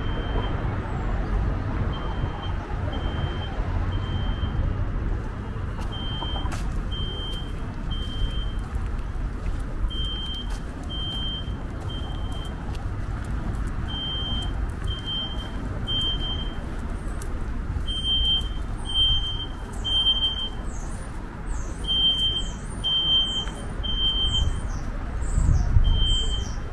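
A high electronic alarm beeps in threes, about one beep a second, then pauses, the cycle repeating every four seconds: the temporal-three pattern of a fire or smoke alarm. Under it runs a steady low rumble of road traffic, and small birds chirp from about two-thirds of the way through.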